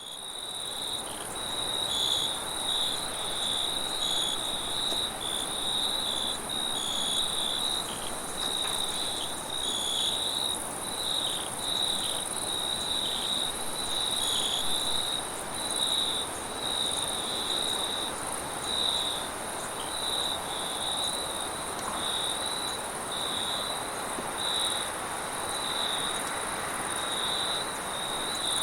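Chorus of crickets chirping: a repeating, pulsing chirp over a steady, higher-pitched trill, with a faint hiss beneath.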